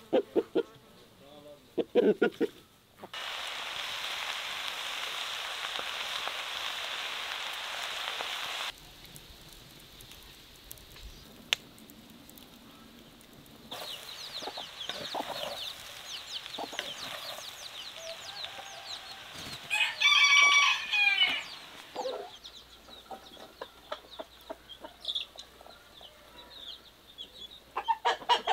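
Rooster clucking, with one loud crow about twenty seconds in. In between, a wok of shredded chicken filling sizzles steadily as it is stirred over the fire.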